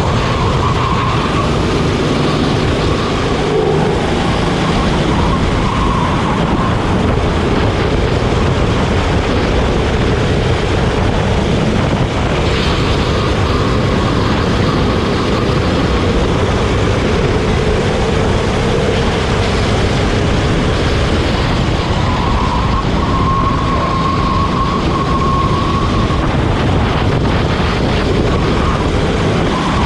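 Go-kart engine running hard during a race, with its pitch rising and falling as it revs up and down over heavy continuous rushing noise.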